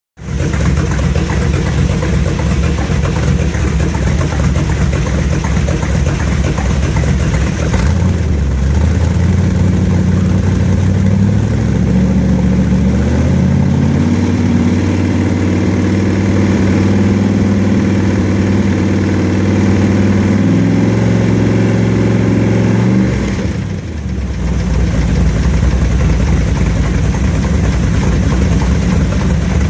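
Chevrolet Corvair air-cooled flat-six engine running with valve lifter noise. It idles, is raised in steps to a faster speed about 8 seconds in, and drops back to idle about 23 seconds in.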